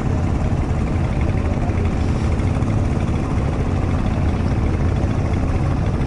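A boat engine running steadily at a constant speed.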